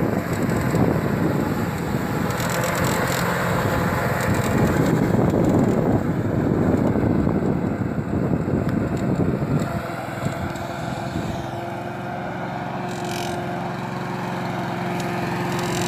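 Rover Pro Cut 560 walk-behind lawn mower engine running steadily while cutting grass, then settling to a quieter, steadier hum about ten seconds in once the mower stops moving.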